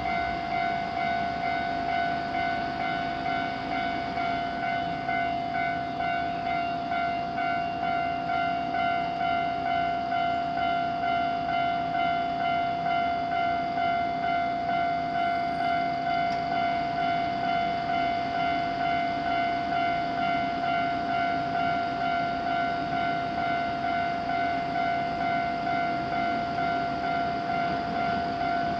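Japanese railroad crossing's warning bell ringing continuously, a steady pitched tone pulsing in a regular rapid rhythm.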